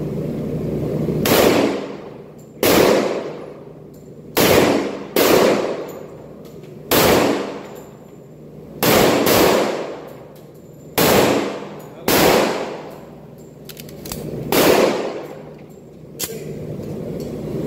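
Caliber .45 pistol firing about ten shots at an uneven pace, mostly one to two seconds apart with a couple of quick pairs. Each shot rings on in the echo of an indoor range.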